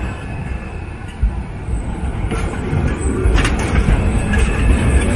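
Articulated tram passing close by on street track, its wheels rumbling on the rails and growing louder as it draws alongside, with a few clacks from the wheels and track a little past the middle.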